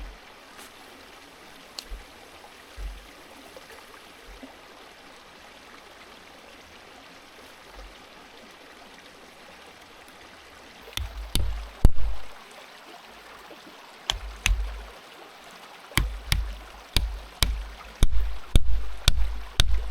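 A river stream flowing steadily. About halfway through, a run of sharp knocks begins, about one to two a second: wood being hammered, as in driving a joint tight to make a wooden frame sturdy.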